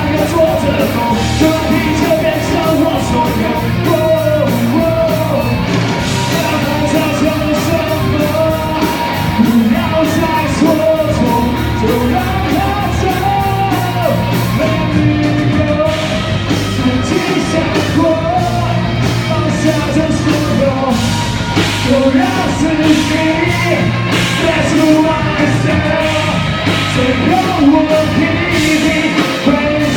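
Live band playing a loud rock song with a sung and partly shouted lead vocal over a steady drum beat.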